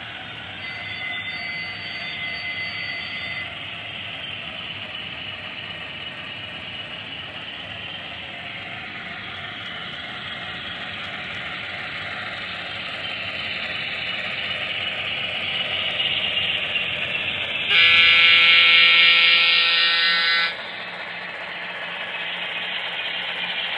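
Model Pennsylvania Railroad Centipede diesel locomotive with a DCC sound decoder running, its diesel engine sound playing from the small onboard speaker, mixed with wheel and motor noise on the track. About three quarters of the way through, one horn blast of about three seconds starts and stops abruptly and is the loudest sound.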